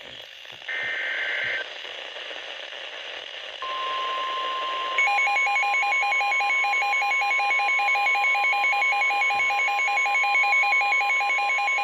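NOAA Weather Radio alert signals: a short burst of the screeching digital header tones about a second in, then the steady single-pitch warning alarm tone from about three and a half seconds. About a second after that, a fast pulsing two-pitch electronic alarm joins it, and the two sound together.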